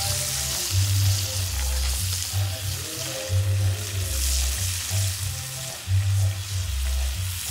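Whole fish frying in hot oil in a pan over a wood fire: a steady sizzle. Music with a heavy, rhythmic bass line plays over it.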